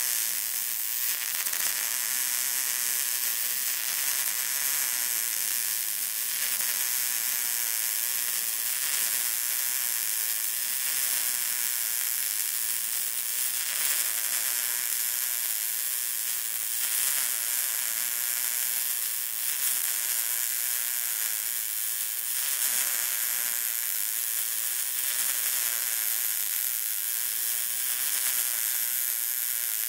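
Wire-feed welder's arc crackling and sizzling steadily as one continuous bead is run.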